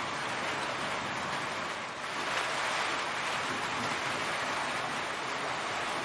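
Heavy rain falling steadily, an even hiss that swells a little louder about two seconds in.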